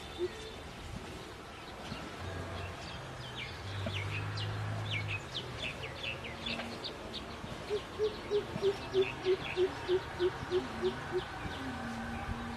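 Birds calling: many short, high, falling chirps repeated again and again. About eight seconds in, a run of about a dozen low, evenly spaced hoots lasts some three seconds, louder than the chirping.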